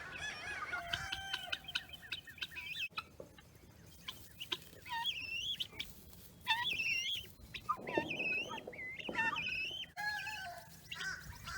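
Guinea fowl calling in a flock, many overlapping high, wavering calls repeated throughout.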